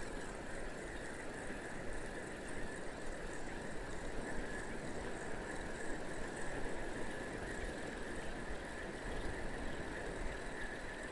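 Steady wash of surf on the beach, an even, unbroken rush with no distinct events.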